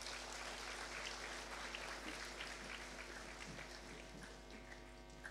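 Audience applauding, the clapping fading away over the few seconds, with a steady electrical mains hum underneath.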